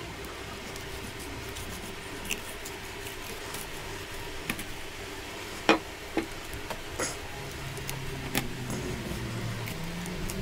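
A knife skinning a raw fish fillet, with scattered sharp clicks and scrapes from the blade and handling, the loudest about halfway through, over a steady low hum.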